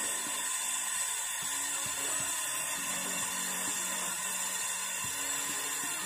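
Brazing torch flame hissing steadily while a copper charging pipe is brazed onto a refrigerator compressor.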